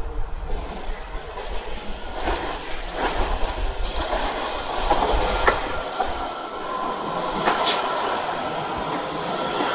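A WMATA 7000-series Metro train pulling into a station platform: a growing rumble with sharp clicks of the wheels over the rails. From about seven seconds in, a steady high-pitched whine or squeal rises as it slows.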